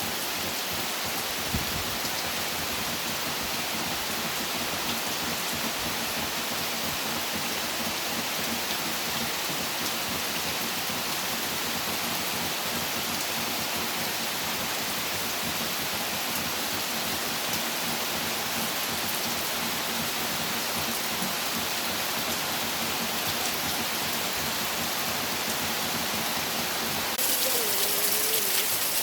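Steady rain falling, an even hiss with no let-up; near the end it gets a little louder and brighter.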